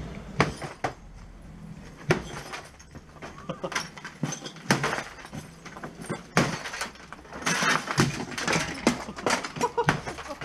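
A long-handled striking tool lands repeated hard blows, smashing glass and debris. The strikes come every second or two, with denser crashing and clattering breakage in the last few seconds.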